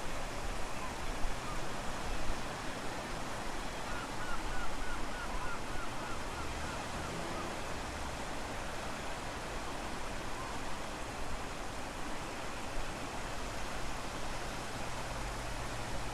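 Strong wind and low-tide surf making a steady rushing noise. About four seconds in, a quick run of about ten short high chirps sounds over it for a few seconds.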